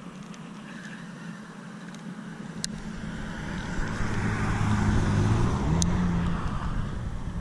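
A road vehicle passing, its engine and tyre noise swelling to a peak past the middle and then easing off. Two sharp clicks, one before and one after the loudest point.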